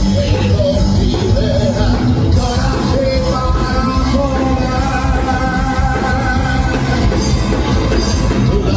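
Punk rock band playing live and loud: distorted guitars, bass and drums. Long held notes ring out over the band from about two and a half to seven seconds in.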